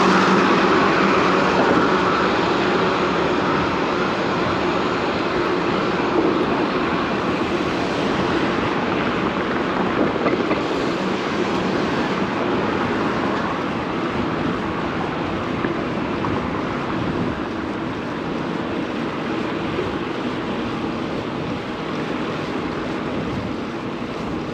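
Steady rush of city traffic and wind over the microphone of a camera on a moving bicycle, slowly getting quieter. A vehicle's low hum is loudest in the first few seconds and fades away.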